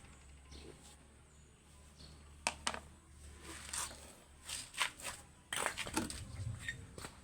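Irregular clicks and scrapes of small hard objects being handled, starting about two and a half seconds in over a low steady hum.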